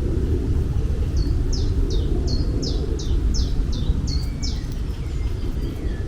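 A bird singing a quick series of about ten high notes, each sliding downward, over a steady low outdoor rumble.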